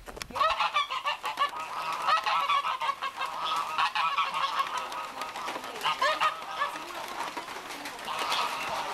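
A flock of waterfowl on a lagoon calling, many short calls overlapping one another without pause, a little louder about two and six seconds in.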